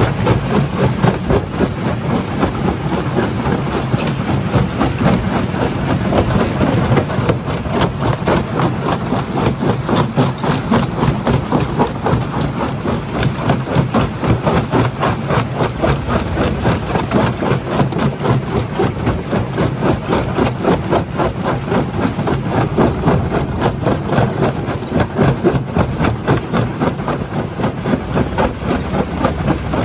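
Stone-crushing plant with a jaw crusher running under load: a steady heavy machine drone with a dense, rapid clatter of rock being crushed.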